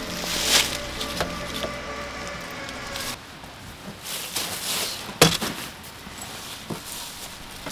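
Scattered knocks and clatter, with the loudest sharp knock about five seconds in; a faint ringing tone dies away in the first three seconds.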